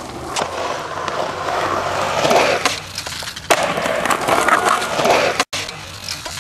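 Skateboard wheels rolling on concrete, with a few sharp clacks of the board, the loudest about three and a half seconds in. The sound drops out briefly about five and a half seconds in.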